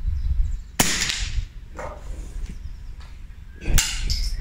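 A single moderated .22 LR rifle shot about a second in, a sharp crack with a short echo. A second sharp sound follows near the end as the rifle is handled.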